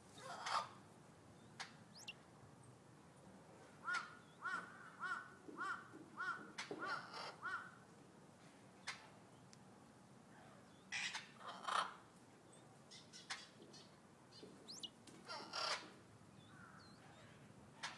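Birds calling: a quick run of about seven arched, repeated notes a few seconds in, and single harsh calls near the start, twice around eleven to twelve seconds, and near the end.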